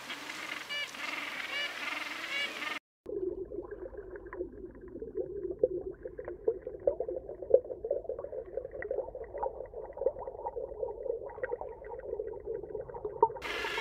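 Penguin calls, short repeated pitched notes, for about three seconds. After a sudden cut comes a muffled underwater sound of a swimming penguin, with dense irregular crackling and bubbling. Penguin calls return at the very end.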